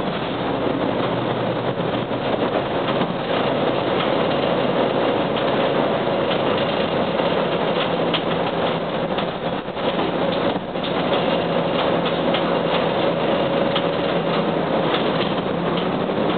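Inside the cabin of a 1998 UD KC-UA460LSN two-step city bus on the move: steady diesel engine drone with road and body noise, the level dipping briefly a little past halfway.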